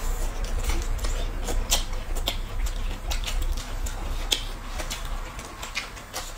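Close-up eating sounds: two people biting and chewing lettuce wraps and bamboo shoots, a quick irregular run of crunchy clicks and mouth noises over a low rumble.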